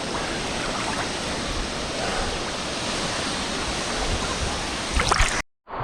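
Waterfall, a steady rush of falling water, with a few short splashes about five seconds in; the sound cuts off abruptly just after.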